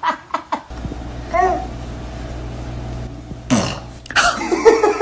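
A baby's vocal noises: a few short bursts at the start, a brief pitched squeal about a second and a half in, and a loud croak sliding downward in pitch about three and a half seconds in, then a run of higher-pitched vocal sounds near the end.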